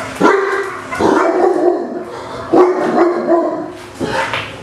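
Neapolitan Mastiff barking aggressively, about four loud barks, each drawn out into a held tone.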